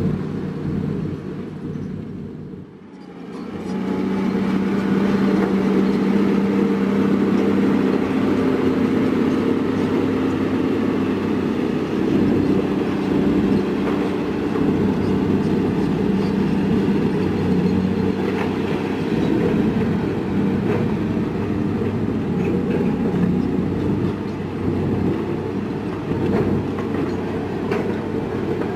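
Heavy construction machinery's diesel engine running steadily under load, with a deep, even drone. The sound dips briefly about three seconds in, then stays loud.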